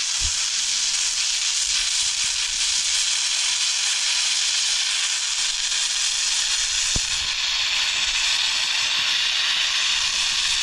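Steady hiss of rushing water, even and unbroken, with one soft knock about seven seconds in.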